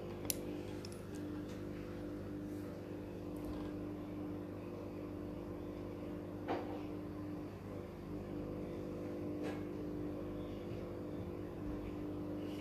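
A small electric motor running with a steady, even hum, with a few faint taps now and then.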